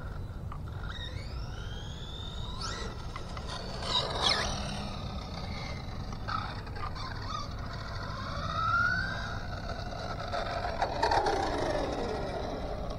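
Team Associated DR10 RC drag car's brushless electric motor whining, rising in pitch as the car accelerates down the street. Later the whine rises and falls again as the car makes another run. A steady low background noise runs underneath.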